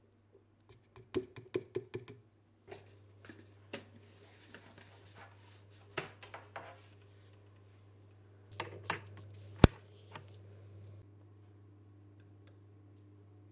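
Powder-coating gear being handled: a quick run of sharp taps and clicks from the scoop, powder cup and gun, then scattered lighter clicks over a steady low hum. The loudest sound is one sharp click about two-thirds of the way through.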